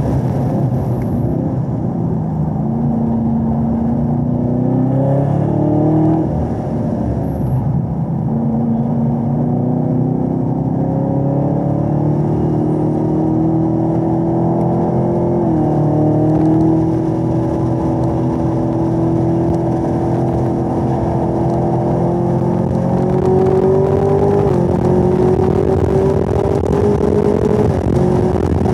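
Supercharged 6.2-litre V8 of a 2017 Camaro ZL1 at full track pace: the engine note drops as the car slows for a corner, then climbs steadily under hard acceleration through the gears of its 10-speed automatic, with a sudden step in pitch at each shift.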